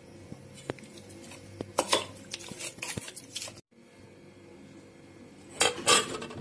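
Raw chicken being mixed with spices in a stainless steel bowl, with scattered clinks and knocks against the metal. Near the end a ceramic plate is set over the bowl with a clatter.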